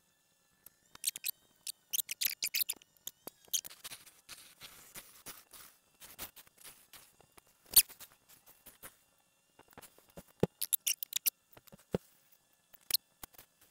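Turning tool cutting a laurel oak hat blank spinning on a wood lathe: a run of short, scratchy scraping cuts with one sharp click about eight seconds in, over a faint steady whine.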